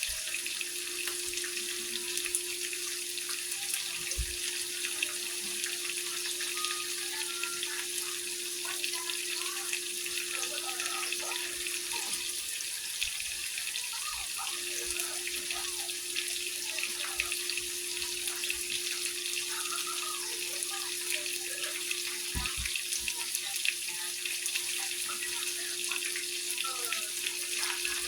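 Ribeye steak sizzling steadily in a hot pan, a constant hiss flecked with fine crackles of spitting fat. Under it runs a steady low hum that drops out for a couple of seconds midway.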